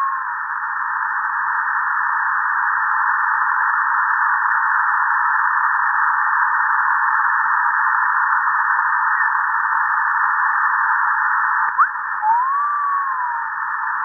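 Shortwave static on 6660 kHz heard through a narrow lower-sideband receiver filter, a steady band of hiss. Near the end a click with a quick upward chirp is followed by a whistle that rises and then falls in pitch over about a second. The tail of a similar whistle fades out at the very start.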